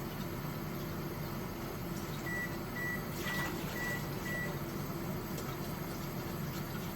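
A kitchen appliance gives five short, high beeps about half a second apart, over a steady hum. A brief rustle comes during the beeps.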